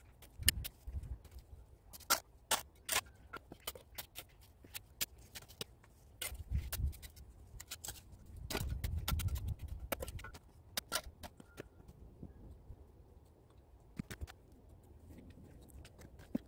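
Irregular sharp knocks and taps of work on cement-block steps, from a tool and boots on block, brick and packed soil. A longer scraping rustle comes about nine seconds in.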